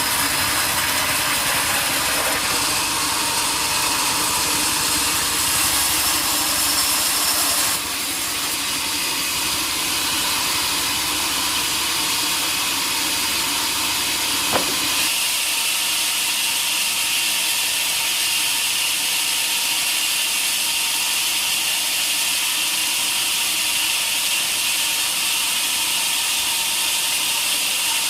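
Sawmill saw cutting through a large hardwood log, a steady loud hissing noise. There is one sharp knock about halfway through, after which the low rumble drops away and the hiss goes on.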